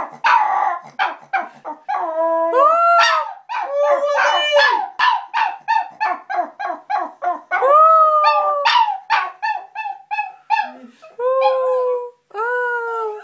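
A pet dog 'singing': a run of quick yips, about three a second, broken by several long howls that bend up and down in pitch.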